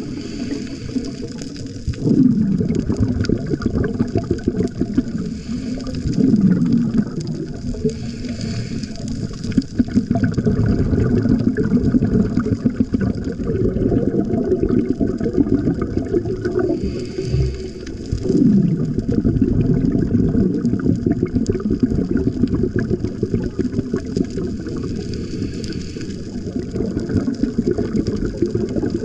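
Scuba diver's regulator breathing heard underwater: a hiss that comes back about every eight seconds, with a low bubbling rumble of exhaled air in between.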